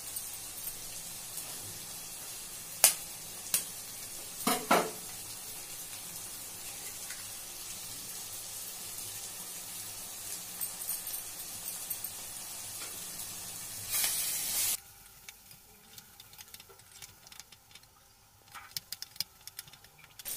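Vegetables frying and sizzling in oil in a pan as eggs are cracked in, with a few sharp knocks of the eggshells being broken over it. About fourteen seconds in, a louder burst of sizzling cuts off abruptly and gives way to quieter sizzling and the scattered clicks and scrapes of a slotted steel spoon stirring the scrambling eggs.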